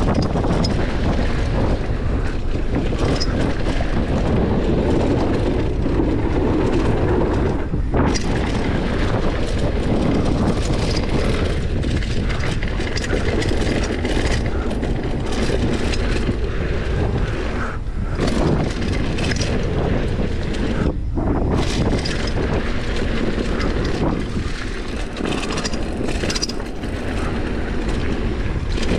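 Mountain bike descending a dirt trail: knobby tyres rolling over dirt and loose gravel, with frequent small clatters from the bike, under a steady rush of wind on the microphone.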